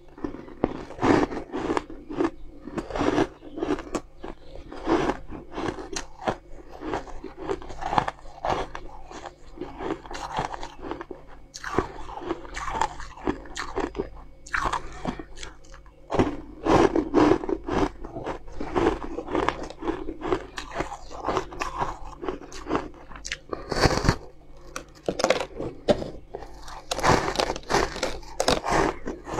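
A person biting and chewing pink-tinted blocks of frozen ice, with repeated sharp, crackling crunches.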